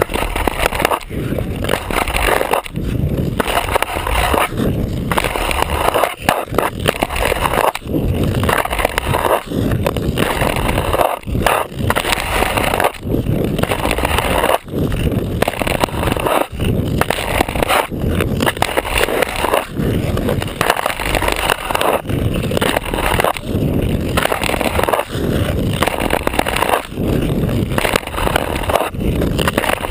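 Ice skate blade scraping and gliding over rough outdoor rink ice, heard right at the skate, in a run of strides with short breaks about every second.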